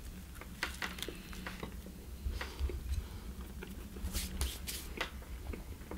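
A person biting into a cheeseburger and chewing it: soft mouth sounds and small scattered clicks, with a few sharper crisp sounds about four to five seconds in.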